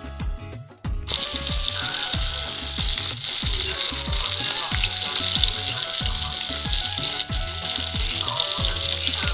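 Breaded chicken breast pieces deep-frying in hot oil: a loud, steady sizzle that starts suddenly about a second in.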